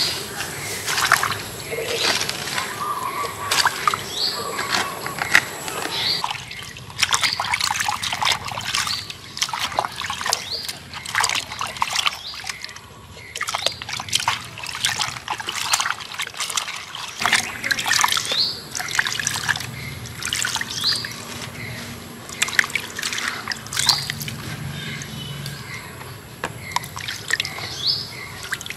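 Hands washing vegetables in a bowl of water: irregular splashing and sloshing, with water trickling off as they are lifted out.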